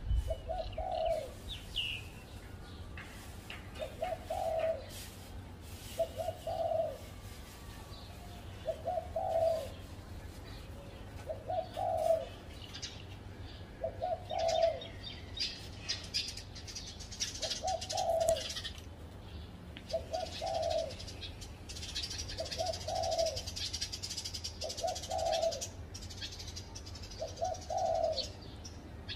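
Spotted dove cooing, a short low coo repeated about every two seconds, with other small birds chirping faintly behind it.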